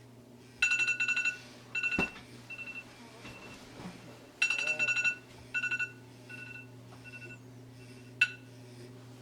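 iPhone alarm going off: a burst of rapid high beeps that trails into fainter, spaced beeps, the pattern starting over about four seconds later. A sharp knock about two seconds in, and a louder one near the end.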